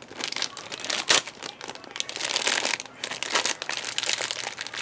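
Sealed blind-box bag crinkling and rustling in the hands as it is opened to reach the figure inside, in a run of irregular crackles.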